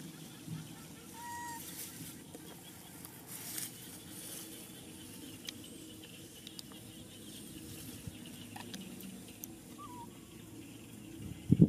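Quiet rice-field ambience with faint rustling in the grass and two short, faint chirps, one early and one near the end, followed by a loud low thump at the very end.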